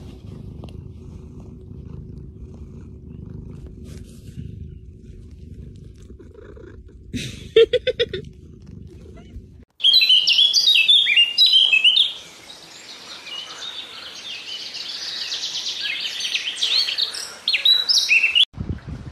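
A cat purring with a steady low rumble, broken by a short run of squeaky pulses about seven seconds in. After a cut, rapid high-pitched chirping of songbirds, loudest for the first couple of seconds.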